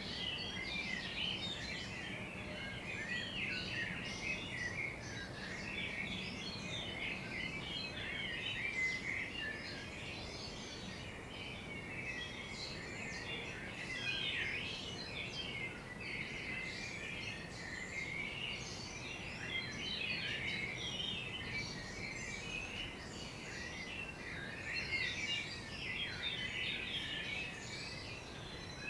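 Many songbirds chirping and singing at once in a morning chorus, dense overlapping short chirps and trills with no pause, over a faint steady low background hum.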